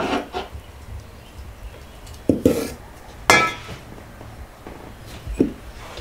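Enamel bowls and glassware knocked and set down on a table: four separate knocks and clinks, the one about three seconds in ringing briefly.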